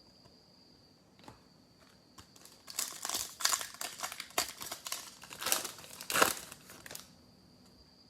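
Trading-card pack wrapper crinkling as it is handled and pulled open, a dense run of crackles from about three seconds in until about seven seconds.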